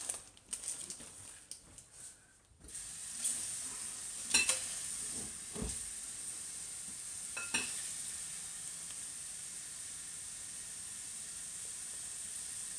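Kitchen tap running steadily into a bowl, filling it with water to cover dry ramen noodles for the microwave. The water starts suddenly a few seconds in, with a few light clinks.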